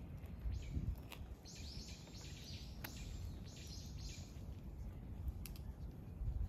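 A bird calling: a quick run of about eight short, scratchy notes, ending around four seconds in, over low wind rumble on the microphone.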